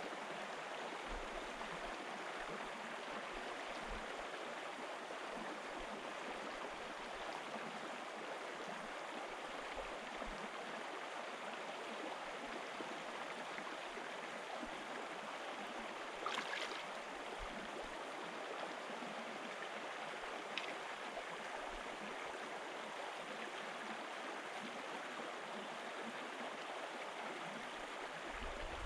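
Shallow moorland stream running steadily over stones, with a brief sharper sound about sixteen seconds in.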